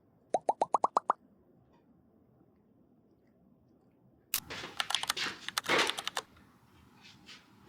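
A quick run of seven short rising 'pop' sound effects, each a step higher than the last. A few seconds later comes a two-second clatter of dense clicks and rustling.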